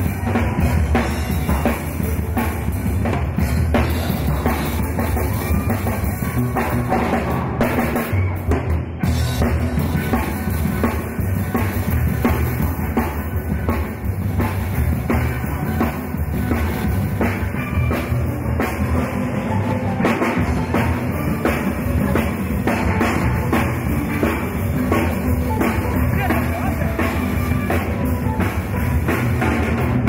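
Steel band playing a tune: steel pans backed by a drum kit, with drum hits throughout.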